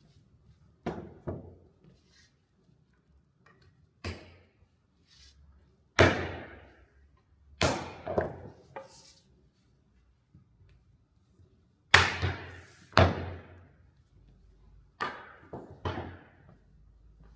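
A series of about a dozen sharp knocks and clunks at irregular intervals, some in quick pairs or threes, as pieces of wood are handled and struck while building furniture.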